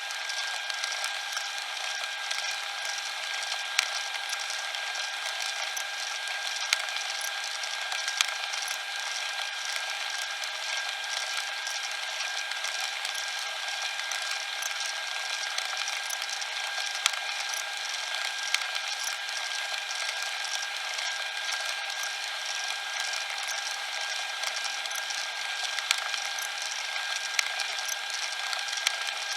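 Cassette tape mechanism running steadily, a mechanical whir with a constant high tone and a few sharp clicks here and there.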